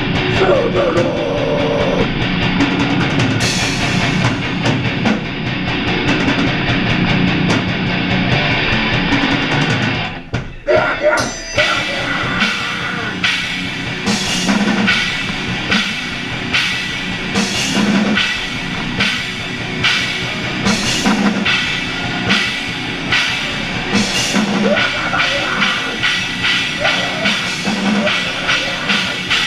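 A metalcore band playing live, with distorted electric guitars and a drum kit at full volume. The band stops briefly about ten seconds in, then comes back in with steady, regular drum hits.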